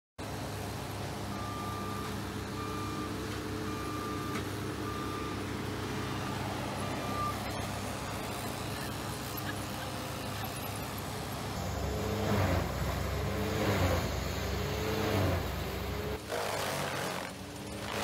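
Machinery engines running steadily at a wood-chipping job, with a reversing alarm beeping at an even pace for about six seconds. About two-thirds of the way through, the engine note gets louder and rises and falls four times in quick succession.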